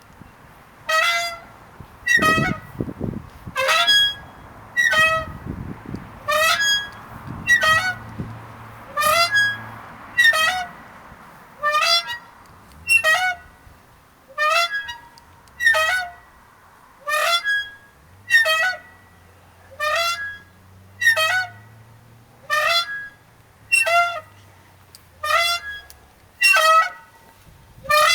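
A swing creaking on every pass, a short, high squeak from its pivots repeating steadily about every second and a bit. A couple of low thuds come in the first few seconds.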